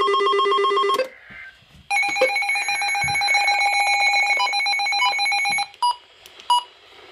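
Weather radio receiver sounding its electronic alert alarm for an incoming warning: a rapid trilling tone for about a second, then a longer, higher-pitched trill of about four seconds, followed by two short beeps.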